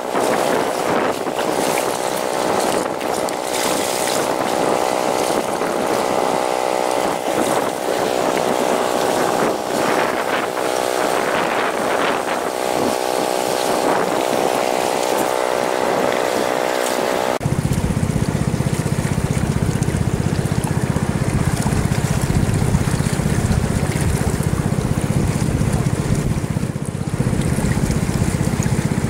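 Steady drone of the small engine-driven water pump that feeds the high banker, over rushing creek water. About two-thirds of the way through, the sound cuts abruptly to a deeper rush of water and wind noise on the microphone.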